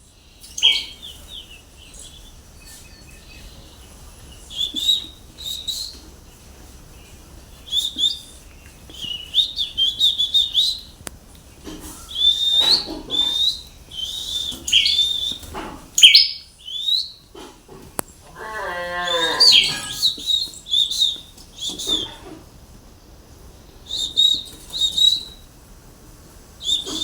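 A bird calling with short, high chirps in repeated bursts, with one lower, drawn-out sound of falling pitch about two-thirds of the way through.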